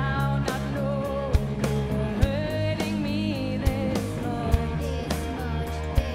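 Live rock music from an all-female band: a woman singing over electric guitars and drums, the drum hits cutting sharply through the mix.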